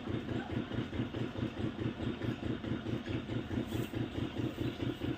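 An engine idling, a steady low pulsing of about five or six beats a second.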